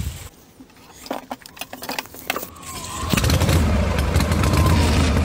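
Small engine of a motorized knapsack sprayer starting: a few scattered knocks and rattles, then about three seconds in it catches and runs loud and steady with a deep rumble.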